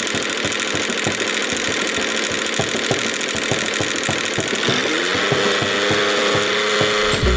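A small motor running with a rapid knocking rattle. About four and a half seconds in, a whine rises in pitch and then holds steady.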